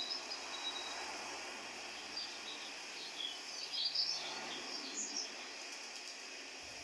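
Birds chirping over a steady hiss of outdoor ambience: short, high chirps, busiest around the middle.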